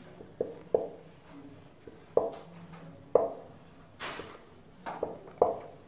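A marker writing on a whiteboard: about eight short, separate pen strokes, with a longer, hissier stroke about four seconds in.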